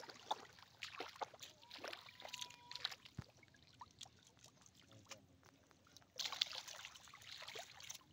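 Shallow muddy water sloshing, with scattered small splashes and clicks. From about six seconds in the splashing grows louder, as when someone wades through it.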